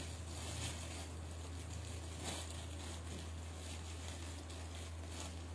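Steady low hum with faint, scattered rustling and handling noises, as of fabric being moved about.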